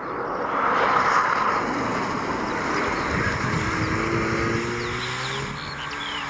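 Mazda RX-7 FC's naturally aspirated 13B twin-rotor Wankel engine under load as the car passes close, loudest about a second in. It then accelerates away with its pitch rising.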